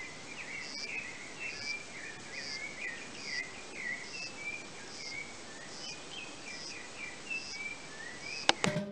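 Outdoor nature ambience: birds chirping, and a short high chirp repeating a little more than once a second, like an insect. Near the end a sharp loud hit starts drum music.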